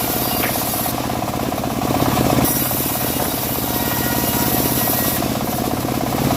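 Homemade bandsaw mill running steadily while sawing dry teak, its drive giving a rapid, even pulsing.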